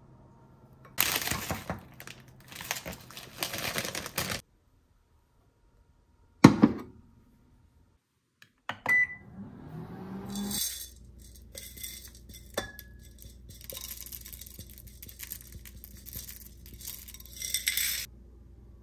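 Kitchen handling sounds during breakfast preparation. Packaging rustles and crinkles, then one loud sharp clink of dishware or a utensil, then scattered small clicks, clinks and more rustling.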